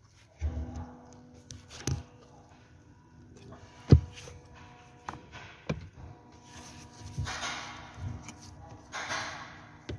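Gloved hands handling the plastic air-mix damper levers and HVAC case of a 2016 Toyota Camry: a series of sharp plastic clicks and knocks, the loudest about four seconds in, then glove rustling later on. A faint steady hum sits underneath.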